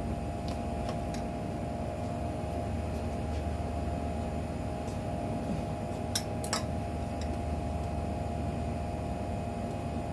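Steady mechanical hum, like a running fan or appliance motor, with a couple of light clicks about six seconds in.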